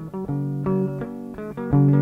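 Instrumental guitar music with bass, a run of plucked notes and chords.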